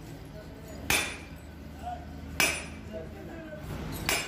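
Sledgehammer blows on a steel drift held against a truck wheel hub: three sharp metal-on-metal strikes about a second and a half apart, each ringing briefly.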